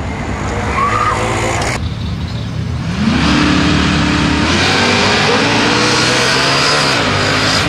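Drag-racing car engines running loud at the starting line. About three seconds in one engine revs up quickly and holds high and steady, then the noise grows rougher and louder as the cars launch.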